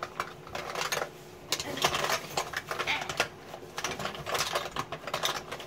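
Irregular clicks, taps and light clatter of small objects being handled close to the microphone.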